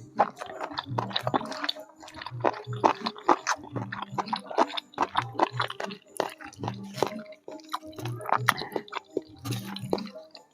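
Close-miked wet eating sounds: chewing and slurping flat rice noodles and enoki beef rolls, a fast, irregular run of moist smacks and squishes.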